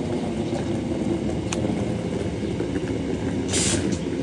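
Elizabeth line Class 345 electric train standing at the platform, its onboard equipment running with a steady low hum. There is a single click about one and a half seconds in and a short hiss of air near the end.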